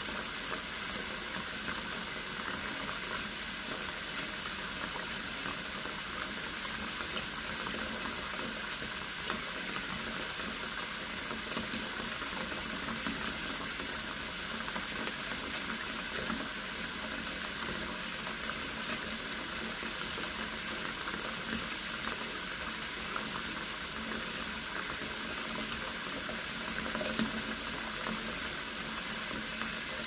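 Kitchen sink tap running a thin stream into a full metal pot, the water splashing in a steady, even rush used as white noise to calm a baby.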